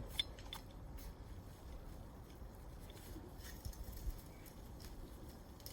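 Faint low background hum with a few small, short clicks of handling.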